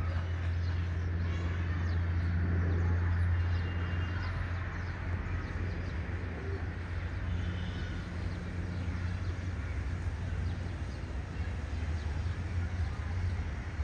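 City ambience: a steady low hum and rumble of distant traffic, a little louder in the first few seconds, with faint bird chirps now and then.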